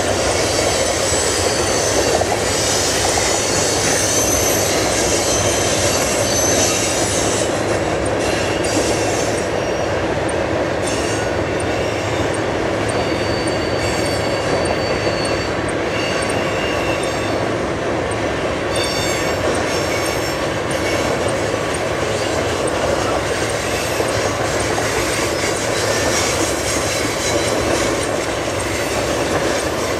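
Freight train rolling past, with a steady noise of steel wheels on the rails. Thin, high wheel squeal comes through over the first several seconds and again now and then.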